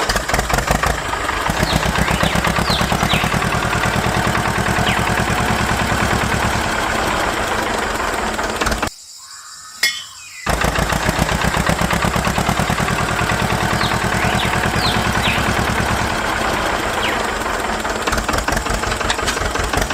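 A small motor running steadily with a fast even pulse. It cuts out for about a second and a half about nine seconds in, then starts again. Birds chirp a few times over it.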